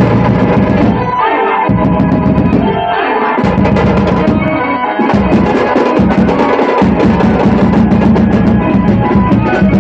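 Loud music with a heavy drum beat.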